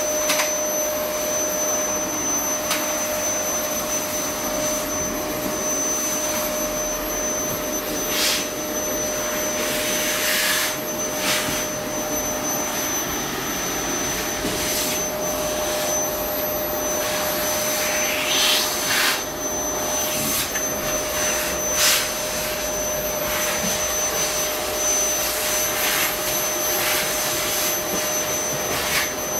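A steady electric motor whine with a constant mid-pitched tone. A few short clicks and scuffs sound over it here and there.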